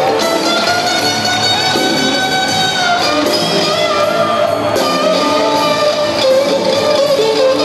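Live rock band playing in an arena, led by an electric guitar holding long notes that bend up and down over the band.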